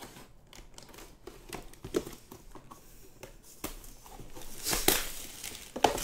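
Plastic shrink wrap being torn and crinkled off a sealed 2022 Topps Museum Collection box of trading cards: scattered crackles, a louder rip about five seconds in, and a sharp snap just before the end.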